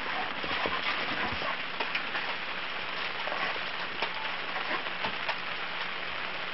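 Light rain falling: a steady hiss of drops with scattered small ticks as they land.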